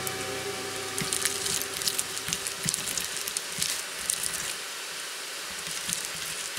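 Hand kneading and squeezing sticky minced shrimp paste in a glass bowl: wet squishing with many small irregular clicks and smacks.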